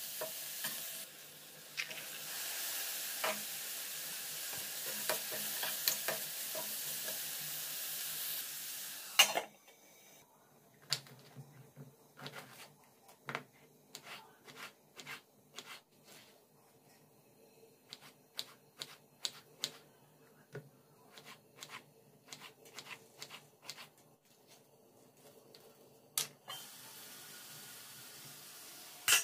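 Chopped onions sizzling in oil in a stainless-steel kadai while a spatula stirs and scrapes the pan, for about nine seconds. Then a knife cuts peeled ridge gourd on a wooden chopping board in irregular sharp taps over quiet. A fainter steady hiss comes back near the end.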